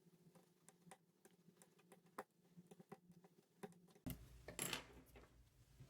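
Near silence with scattered faint clicks and ticks of hands handling the opened iPhone, and a brief soft rustle about four seconds in.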